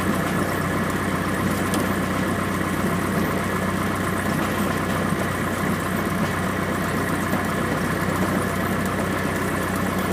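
Light aircraft's piston engine running steadily at low taxi power, heard inside the cockpit.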